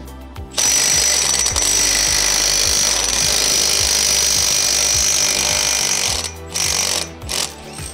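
Impact wrench hammering on the clutch basket nut to undo it: one long burst of about five seconds, then two short bursts near the end.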